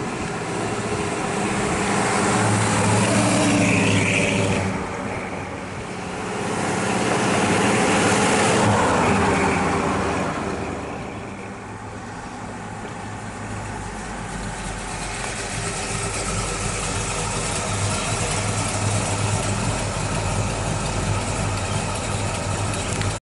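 1963 Ford F-Series pickup's V8 engine running: revved twice in the first ten seconds, then settling into a steady idle.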